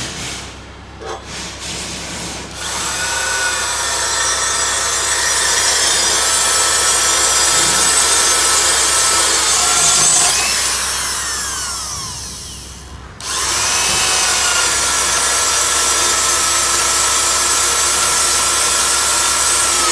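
Electric power tool running under load with a steady whine, in two long runs. Near the middle it winds down, its whine falling in pitch, then starts again suddenly about a second later.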